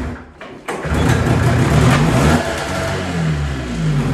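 Arctic Cat Puma 340's air-cooled two-stroke engine being started: after a short drop about half a second in, it catches and runs unevenly for a few seconds, its pitch wavering up and down. The engine is suspected of having dirt in the bottom of its carburetor bowl.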